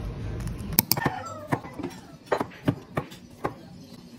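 Store background hum for under a second, then a cleaver chopping carrots on a wooden cutting board: sharp knocks, about two a second, unevenly spaced.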